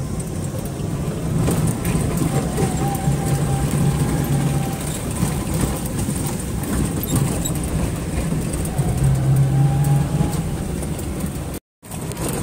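Maruti Gypsy jeep driving over a rough, stony dirt track, heard from inside the cabin: a steady engine drone with the body clattering and rattling over the stones. The sound cuts out for a moment near the end.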